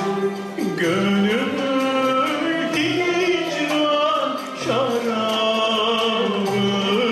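A man sings a slow, ornamented solo line in Turkish classical art music style, his voice gliding between notes. An instrumental ensemble with violin accompanies him.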